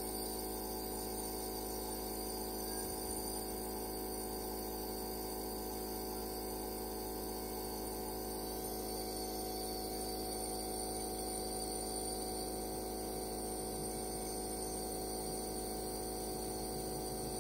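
Nebulizer compressor running with a steady, unchanging hum and whine while it mists medication to the cat.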